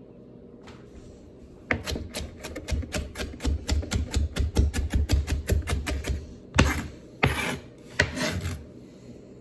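A chef's knife mincing celery on a cutting board with a rapid cross chop: fast knocks of the blade, about five a second, starting a couple of seconds in. Near the end come three longer scraping strokes across the board.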